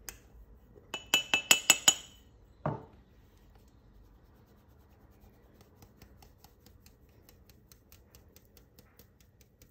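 Stainless steel mesh sieve knocked against a glass mixing bowl while flour is sifted: a quick run of about eight sharp, ringing clinks about a second in, a single dull knock, then faint, steady ticking as the sieve is shaken and tapped.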